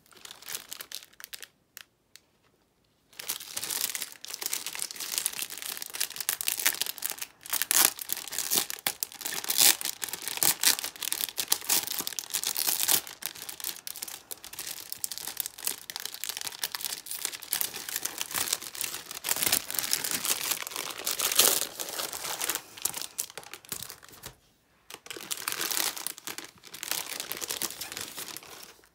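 Clear plastic wrapping crinkling and tearing as it is handled and peeled off a book by hand. A few light touches come first, then steady crackling from about three seconds in, with a brief pause near the end.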